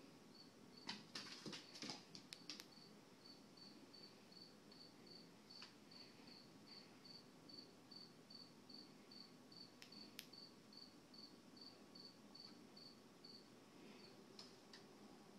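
Faint cricket chirping in an even rhythm, about two to three high chirps a second, breaking off near the end. A few faint sharp clicks about a second in and again around ten seconds in.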